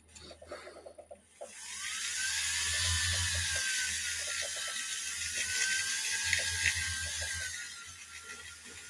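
Handheld rotary tool with a small blue abrasive wheel: a few light clicks, then about a second and a half in the motor spins up to a steady whine that wavers as the wheel is worked against a small metal part, with a grinding hiss over it.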